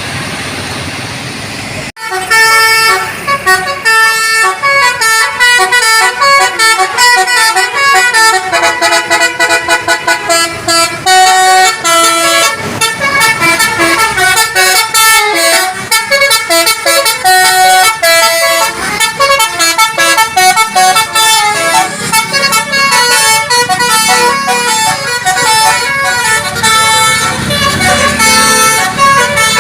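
Bus 'telolet' multi-tone horn playing rapid melodic runs of short, shifting notes. It starts abruptly about two seconds in, over steady traffic noise, and keeps going with brief breaks.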